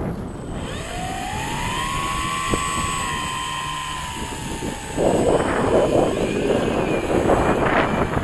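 Electric motor and propeller of a Durafly Slow Poke RC plane whining at launch power: the whine rises in pitch about a second in, holds, then slowly sinks as the plane flies off. From about five seconds in, gusty wind noise on the microphone covers it.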